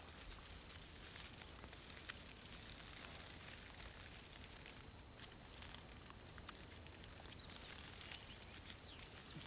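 Faint field ambience: soft crackles and rustles of dry wheat straw being handled and bound into a sheaf, with a few faint high chirps near the end.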